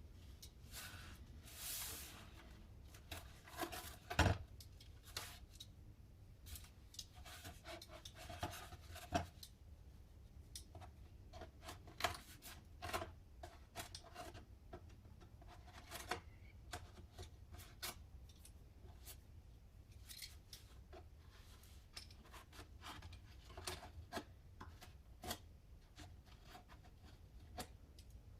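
Stanley knife blade cutting fin slots into a rocket booster tube: irregular short scraping strokes and small clicks, with a sharper click about four seconds in.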